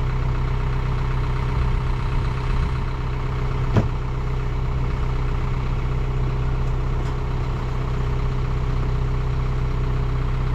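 A motor running steadily at an even idle, with one short click about four seconds in.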